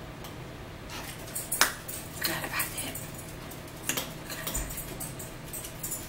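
Cutlery clinking and scraping against a bowl during a meal: a string of short, sharp clicks, the loudest about a second and a half in.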